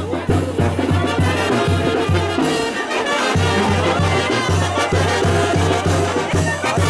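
Street brass band (banda de viento) playing a lively tune: trumpets and other brass carrying the melody over a steady, regular beat of tuba and bass drum, the low beat briefly dropping out about three seconds in.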